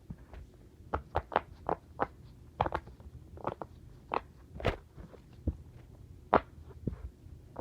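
A series of short, sharp pops, about fifteen of them at irregular intervals, some coming in quick pairs.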